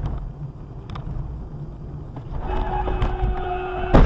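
Engine and road rumble inside a car, then a steady horn blast for about a second and a half, cut off by a loud crash as the car hits the side of a box truck.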